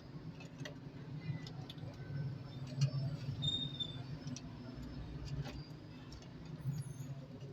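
Scattered light clicks and taps, irregular and a few each second, over a steady low hum.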